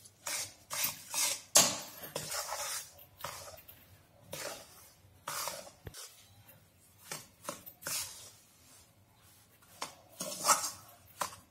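A spatula scraping and stirring a crumbly mix of roasted besan and sugar in an iron kadhai, in irregular strokes with a short lull a little before the end.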